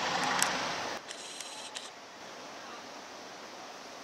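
Fablok SM31 diesel shunting locomotive running as it pulls away. The sound cuts off sharply about a second in, leaving a few clicks and then a steady low hiss.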